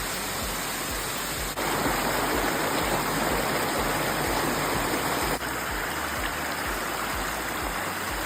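Waterfall: a steady rush of falling water. It gets suddenly louder about one and a half seconds in and drops back about five seconds in, as the shot changes.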